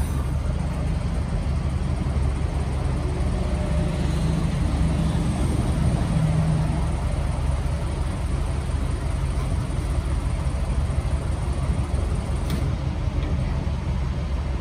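Steady low rumble of vehicles at a truck-stop diesel pump while fuel runs through the nozzle into a pickup's auxiliary fuel tank, with a single click near the end.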